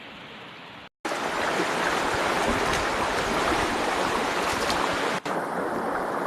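Rushing river water, a steady noisy rush. It is fainter at first, cuts out briefly about a second in, then comes back much louder and close.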